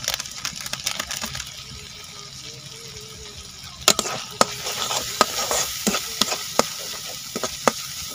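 Onion and spice masala sizzling in hot oil in a metal kadai. About four seconds in, a metal spatula starts stirring it, clinking and scraping against the pan several times.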